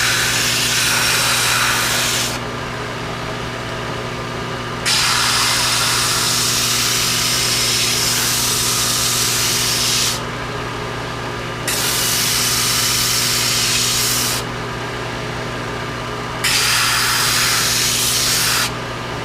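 Belt sander running steadily while a rocket fin's leading edge is pressed to the belt, sanding it to an airfoil. There are four sanding passes, each a loud hiss lasting two to five seconds, separated by stretches of the motor running alone.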